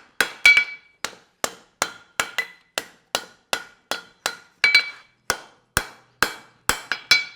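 Farrier's hammer striking a hot steel horseshoe on an anvil: a steady run of blows a bit under three a second, each with a short metallic ring, as the wedge heel is forged.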